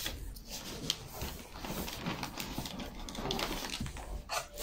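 Paper packing rustling and crinkling as hands rummage through a cardboard delivery box, a quick run of small irregular crackles.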